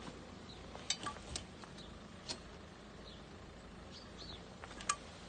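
Quiet outdoor background with a few sharp clicks, one about a second in and the loudest near the end, and some short high chirps.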